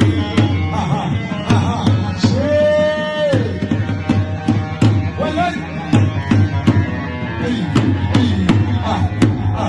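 Music from an Iraqi song: a hand drum beats a steady rhythm under a melody line. A long held note sounds about two and a half seconds in.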